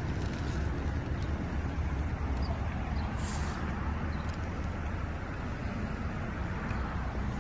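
Steady low outdoor background rumble with no distinct event, with a brief faint high hiss about three seconds in.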